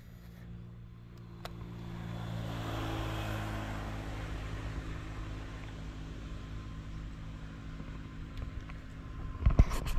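A small engine running steadily, growing louder about two to three seconds in and then holding at an even pitch. A few sharp clicks come near the end.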